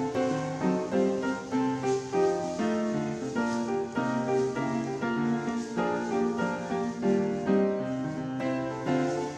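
Background piano music: a melody of struck notes changing every fraction of a second.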